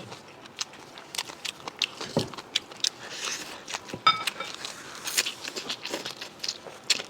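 Close-miked eating: chewing with wet mouth clicks and smacks as meat is bitten and worked between the teeth. About four seconds in there is a sharper click and a brief high chirp.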